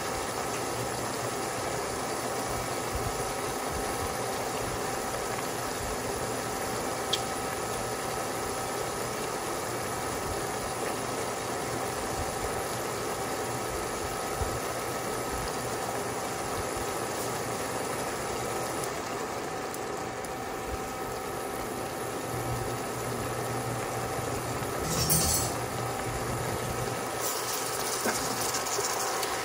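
Pot of pechay greens simmering on an electric glass-ceramic cooktop, over the cooktop's steady hum. Near the end a spatula starts stirring the greens in the stainless steel pot.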